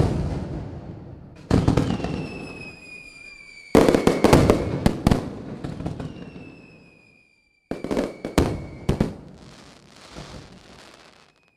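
Fireworks: four bursts of bangs, each fading into a crackling tail. Twice a high whistle slides slowly down in pitch over a couple of seconds.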